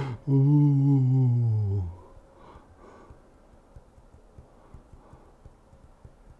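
A man's long hummed 'mmm', falling slightly in pitch and lasting about a second and a half, right after a short laugh or exhale. Then only faint breathing and small clicks.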